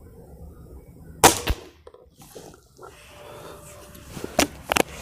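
A Diana AR8 N-TEC gas-ram (nitro piston) break-barrel air rifle firing a .22 pellet: one sharp, loud shot about a second in, with a brief tail. Near the end, a quick series of metallic clicks as the barrel is broken open to cock it.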